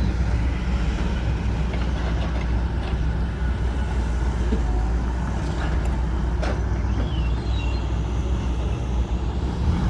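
Heavy diesel engines of excavators and dump trucks running steadily with a deep rumble, with a few light knocks.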